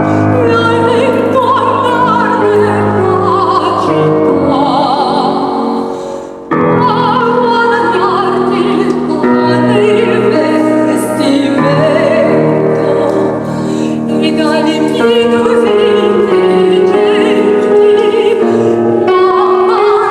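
Soprano singing an operatic aria with wide vibrato, accompanied by piano. The sound dips and then cuts back in abruptly about six and a half seconds in.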